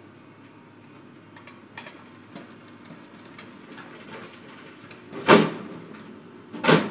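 Old Peterbilt dump truck's diesel engine running steadily as it dumps a load of rock with the bed raised, with scattered small clatters. About five seconds in and again just before the end come two loud bangs.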